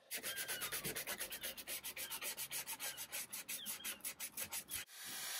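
Hand rubbing quickly back and forth over a pine board, about eight strokes a second, working stain into the grooves with a cloth. The rubbing stops abruptly near the end and is followed by a steady hiss.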